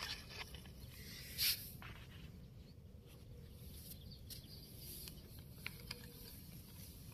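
Faint gritty scraping and crunching of a small plastic toy dump truck's wheels being pushed by hand through sand, with scattered small ticks and one louder brief rustle about one and a half seconds in.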